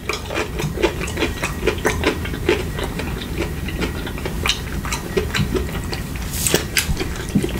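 Close-miked eating: chewing with a steady run of wet mouth clicks and smacks, several a second.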